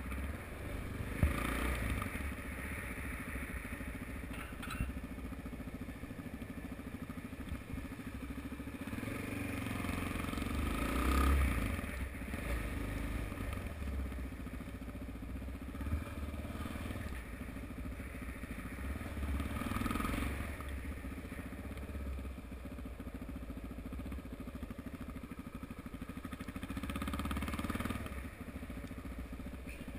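Suzuki DR-Z motorcycle's single-cylinder four-stroke engine running at low speed, its revs rising and falling several times as the bike pulls away and rides on through the bends.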